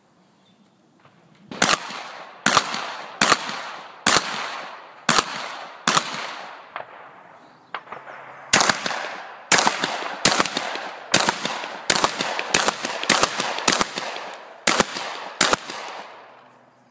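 Combat shotgun firing solid slugs in quick succession, each loud shot trailing off in an echo. A string of six shots is followed, after a pause of about two seconds, by a faster string of about a dozen.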